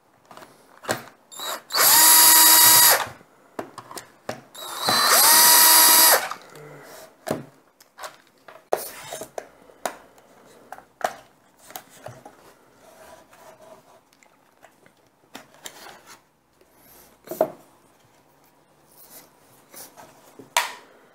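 Black & Decker cordless drill-driver running twice in short bursts with a steady whine, about a second and a second and a half long, backing screws out of a cordless vacuum's plastic housing. Scattered clicks and knocks follow as the housing is handled and opened.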